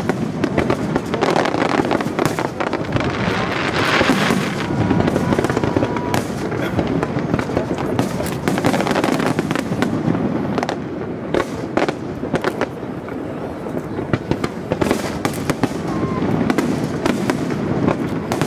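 Aerial fireworks shells bursting one after another, a dense run of sharp pops and crackles that never lets up.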